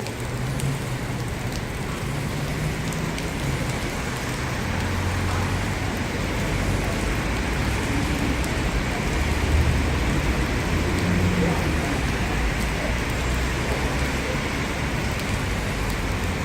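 Heavy rain pouring down steadily, a dense hiss of downpour hitting surfaces, with an uneven low rumble underneath.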